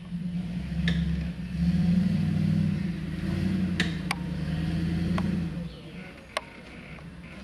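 Jeep Wrangler engine running under load as it climbs a rocky hill trail, growing louder about two seconds in, then easing off near the end. A few sharp clicks over it.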